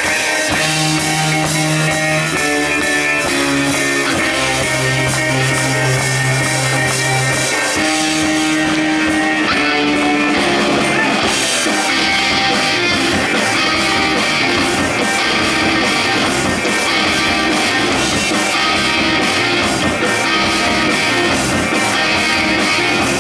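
Rock music from a band: guitar with drums. Held low notes and chords open it, and a steady driving beat takes over about halfway through.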